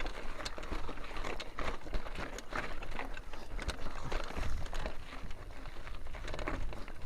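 Mountain bike rattling over rough trail: irregular clicks and clatter from the bike, with a low rumble of wind and ground noise on the microphone.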